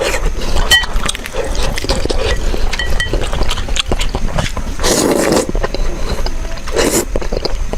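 Close-miked eating: wet chewing with many small clicks, and two loud slurps of noodles about five and seven seconds in.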